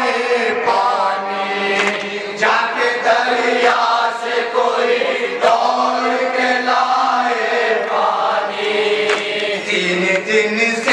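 Male voices chanting a noha, a Shia Muharram lament for Husain, in long drawn-out melodic lines that glide between notes without a break.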